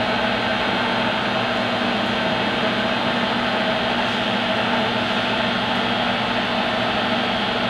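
Monarch 10EE toolroom lathe with its spindle running at a smooth 1,000 RPM: a steady, even mechanical hum with several held tones and no change in speed.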